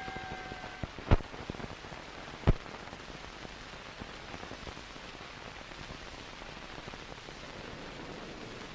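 A boxing-ring gong's ring fading out in the first second, then two sharp knocks about a second and a half apart, over a steady hiss.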